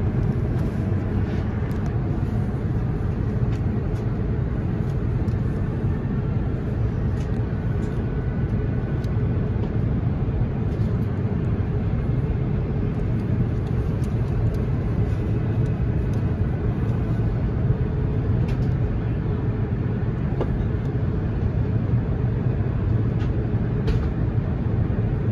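Airbus A350 cabin noise heard from a window seat in flight: a steady low rumble of airflow and engines.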